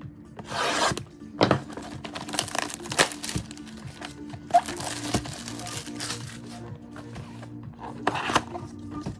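Plastic shrink-wrap crinkling and tearing in a string of short bursts as it is stripped off a sealed trading-card box, with the cardboard box being handled, over faint background music.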